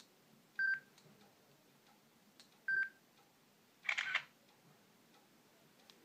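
Sony Ericsson Aino U10 camera sounds from the phone's speaker: two short electronic beeps about two seconds apart as the autofocus locks, then a simulated shutter click about four seconds in as the photo is taken.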